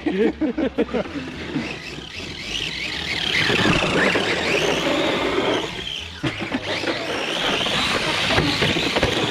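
Brushless electric drive of an RC monster truck running hard over grass, its motor whine rising and falling in pitch as it speeds up and slows, over tyre and drivetrain noise. The drive eases off around six seconds in, then picks up again.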